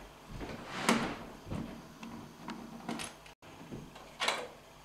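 Retaining clips being prised off a flat-screen TV's sheet-metal back panel with a screwdriver: several scattered short clicks and scrapes, the strongest about a second in and near the end.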